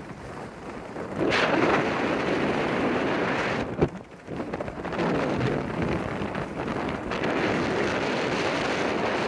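Strong wind buffeting the microphone in uneven gusts, with a short sharp knock about four seconds in.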